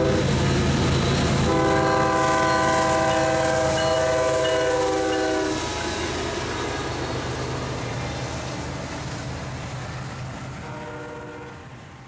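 Union Pacific diesel locomotive hauling a doublestack container train past at speed: a steady low engine rumble, and a long horn blast of several notes sounded together for about four seconds, starting a second and a half in. After that the rumble of the passing cars fades, and a brief fainter tone comes near the end.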